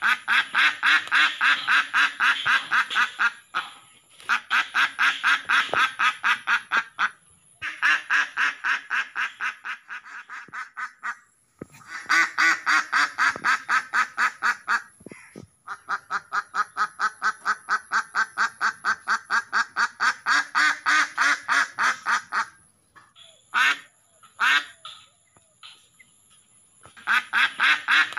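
Domestic duck quacking in fast runs of about seven quacks a second, each run lasting a few seconds with short pauses between. Near the end, two single separate calls about a second apart come before the fast quacking starts again.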